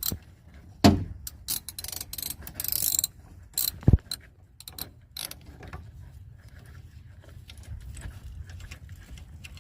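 Hand tools clicking, scraping and knocking against the small metal clip of a pickup's inside door handle mechanism while it is held and unscrewed. There are sharp knocks about a second in and near four seconds, and it goes quiet after about six seconds.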